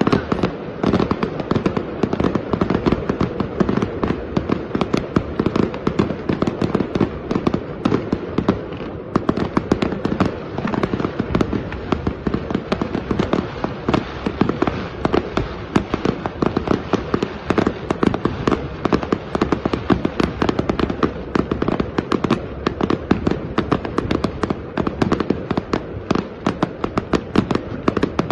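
Fireworks display: a dense, continuous barrage of shell bursts and bangs, many a second, without a break.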